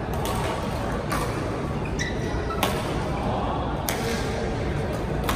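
Badminton rackets hitting shuttlecocks: sharp, irregular clicks about once a second, from the rally on the near court and from the courts around it, over a steady hall noise with some echo.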